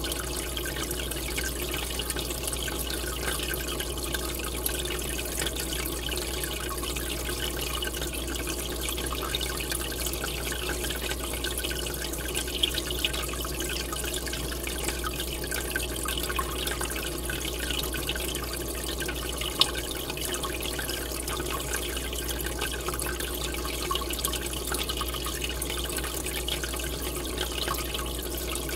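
Aquarium water bubbling and trickling steadily as an air line's column of bubbles rises and breaks at the surface, over a steady low hum. A couple of brief louder pops come about halfway through.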